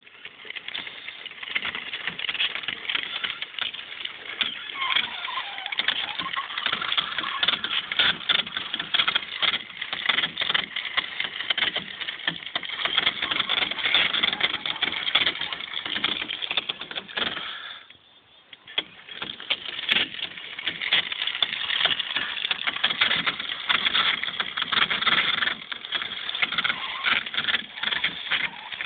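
Homemade quick match coating machine running, a continuous dense rattling clatter made of rapid clicks. It stops briefly about two-thirds of the way through, then starts again.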